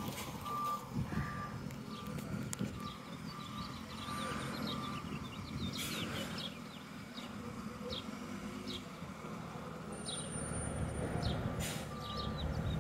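Garbage truck's reversing beeper sounding about twice a second over a low engine rumble, as the truck backs during a tight turn; the beeping stops about five seconds in and returns briefly near the end. Small birds chirp throughout.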